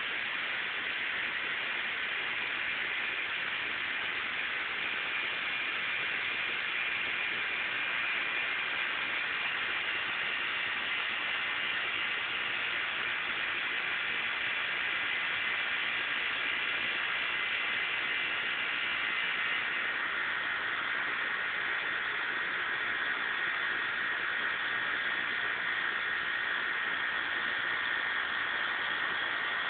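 Steady high-pitched hiss of a summer insect chorus, with faint held tones that drift slightly lower about two-thirds of the way through.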